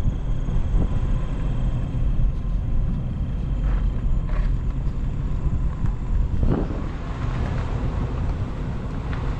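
Four-wheel-drive vehicle rolling slowly along a paved road, heard through an open side window: a steady low rumble of engine and tyres.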